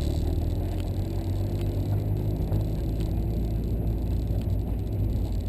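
1996 Mazda Miata's 1.8-litre four-cylinder engine running steadily, a low hum.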